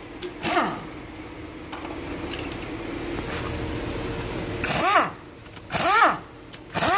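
Short bursts from a power tool, each winding down in pitch as it lets off: one about half a second in, then three about a second apart near the end, with a faint steady hum underneath.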